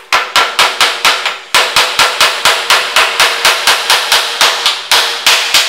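Hammer driving a small nail into a stack of plywood strips: a fast, even run of about twenty-five strikes, about five a second, each with a short ring, with a brief pause about a second and a half in.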